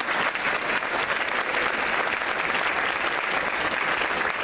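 Audience applauding: many people clapping, steady and sustained.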